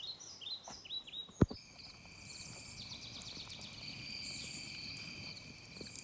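Night-time insects calling: a steady high-pitched trill with pulsing buzzes above it, setting in after a single sharp click about one and a half seconds in. Before the click there are a few short falling chirps.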